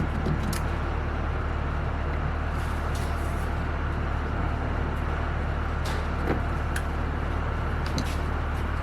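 A steady low engine hum, like a motor idling, with a few light clicks about six and eight seconds in.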